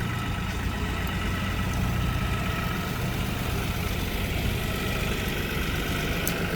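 Steady low engine hum, as of an idling vehicle, running evenly with no change in level.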